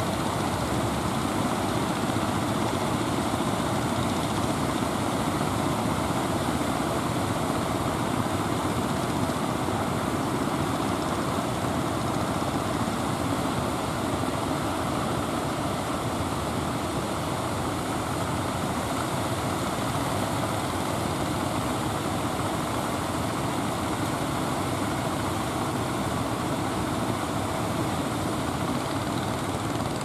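Engines of wooden fishing boats running steadily as they motor in through the swell, over a constant wash of sea noise.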